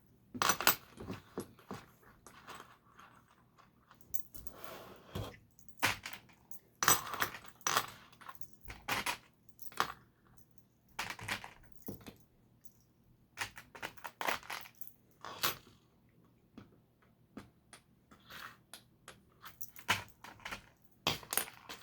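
Small plastic LEGO pieces clicking and clattering as they are picked through and handled, in irregular runs of short clicks with brief pauses between.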